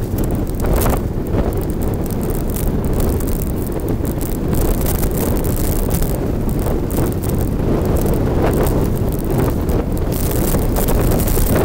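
Wind noise buffeting the microphone of a bike-mounted action camera as a mountain bike rides a rough, rutted dirt track, with many small knocks and jolts from the bumpy ground.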